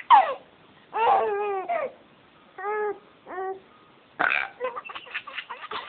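A baby squealing, babbling and laughing in short high-pitched bursts with pauses between them, starting with a falling squeal.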